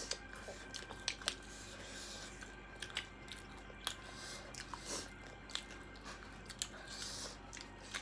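Someone chewing and crunching crisp panipuri close to the microphone, with irregular sharp crunches.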